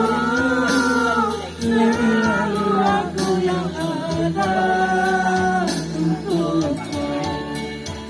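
Music with voices singing long held notes in phrases of one to two seconds.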